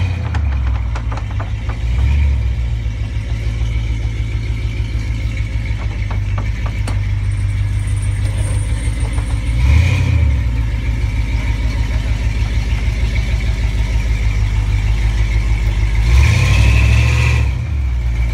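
Lifted pickup truck's engine idling with a steady low pulsing, swelling louder briefly a few times.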